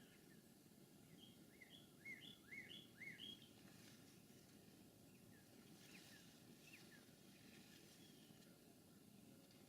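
A small songbird singing faintly: a phrase of about six quick up-and-down notes starting about a second in, then a few fainter notes later, over a low steady background noise.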